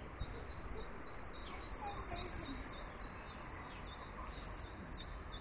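Ducklings peeping: a rapid run of short, high chirps, busiest in the first half and sparser later, over a steady low rumble of background noise.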